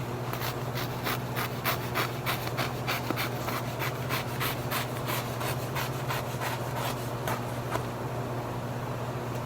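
Rhythmic rasping strokes, about three a second, over a steady low hum; the strokes stop near the end.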